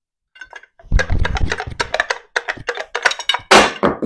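Steel tools clanking and clicking against the cast-iron harmonic balancer of a Ford 4.6L V8 as it is worked off the crankshaft nose: a rapid, uneven run of metallic clicks and knocks starting about a second in. The loudest clatter comes near the end, as the balancer comes free.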